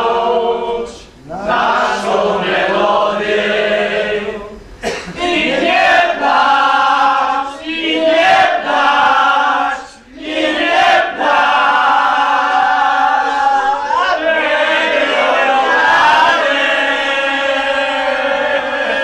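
A group of men singing a Polish song together in chorus, unaccompanied, in long held phrases.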